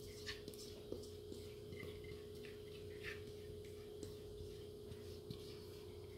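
A faint steady hum with a few soft, scattered taps and scrapes from a spatula spreading cake batter in a baking pan.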